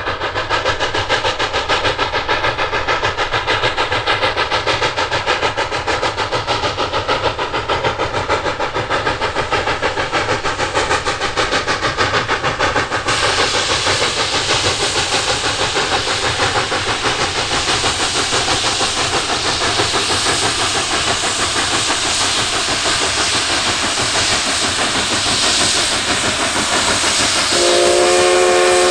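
Rio Grande class K-36 narrow-gauge steam locomotive working hard upgrade, its exhaust beating steadily with a hiss of steam. Near the end a steam whistle starts to blow, a steady chord.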